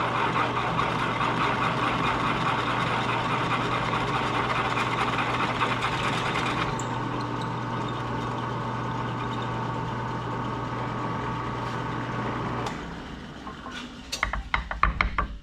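A steady machine hum from a running motor, which cuts off suddenly about 13 seconds in, followed by a few sharp clicks and knocks.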